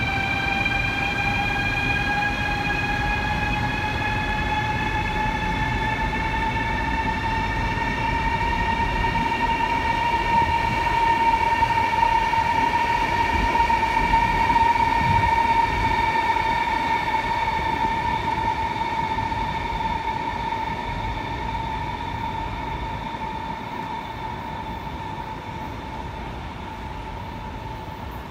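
CRH high-speed electric train moving through a station, its traction motors giving a whine that climbs in pitch over the first ten seconds or so as the train gathers speed, then holds steady, over a low rumble from the running gear. The sound grows louder to about halfway, then slowly fades.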